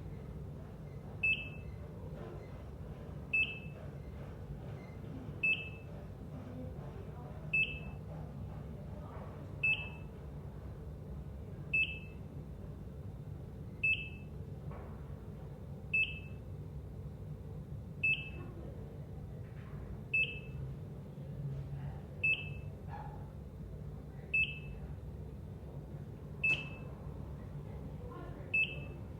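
Electrocardiogram heart monitor beeping: a short, high beep repeating steadily about every two seconds, over a low, steady background hum.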